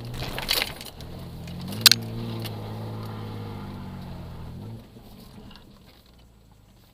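1996 Nissan Pathfinder's engine running off-road, its pitch rising briefly about two seconds in, then dropping away suddenly about two-thirds of the way through. There are two sharp knocks, one about half a second in and a louder one just under two seconds in.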